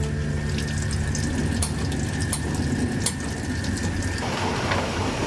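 Water running from a tap into a small stainless-steel washbasin as hands are washed under it, splashing with small clicks.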